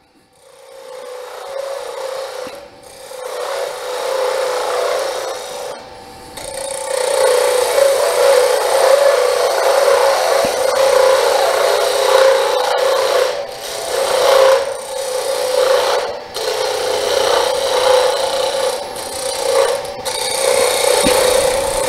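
Wood lathe turning a hardwood duck call blank while a hand-held turning tool cuts it, peeling off shavings: a steady scraping hiss over a constant hum. The cut builds up within the first second and dips briefly every few seconds.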